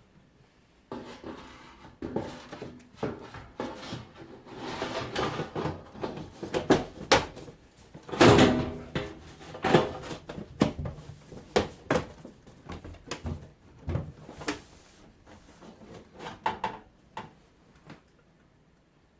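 Irregular clicks, knocks and scraping of dishwasher door parts being handled and fitted back together, with one loud knock about eight seconds in.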